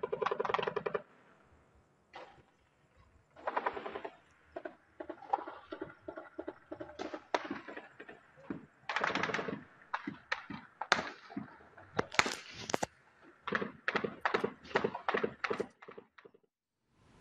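Gunfire from light and medium weapons: rapid bursts of automatic fire, then many separate shots in the second half, stopping shortly before the end.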